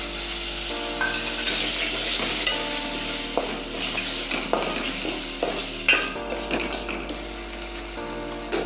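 Chopped tomatoes sizzling in hot oil with tempering spices in a pan while being stirred, with a few scrapes of the spoon against the pan.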